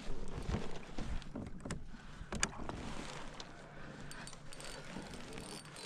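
A scatter of sharp clicks and light knocks from a plastic fishing kayak and its fishing gear, over a low hiss.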